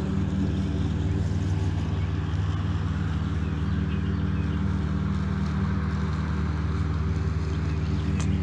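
Lawnmower engine running steadily in the background: a low, even hum with several steady tones.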